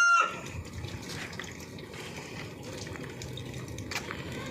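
A rooster's long crow cuts off just at the start, followed by a steady rush of running, trickling water.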